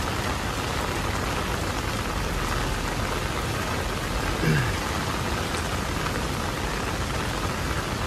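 Torrential rain falling steadily, an even hiss of heavy rain on the pavement and the river. A short low falling sound comes about halfway through.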